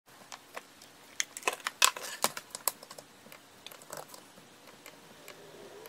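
Fingers typing on a laptop keyboard: irregular key clicks, in a quick run about a second in, then scattered taps.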